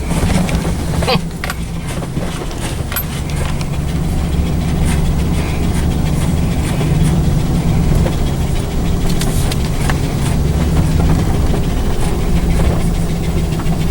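A vehicle engine running steadily, with a few sharp knocks about a second in.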